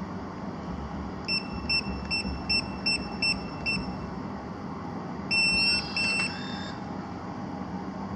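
An igloohome smart lock keypad beeps seven times in quick, even succession as the PIN digits and hash key are pressed. A couple of seconds later come two longer beeps with a short chime and click, the lock accepting the code and unlocking.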